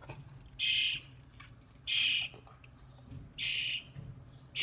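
A bird trapped in a kitchen exhaust vent calling over and over: short, high, even calls about every second and a half, four of them.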